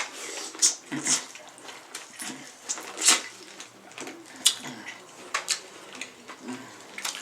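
Close-up wet eating sounds from a saucy seafood boil: chewing, slurping and lip smacks, with irregular sharp smacks every half second or so.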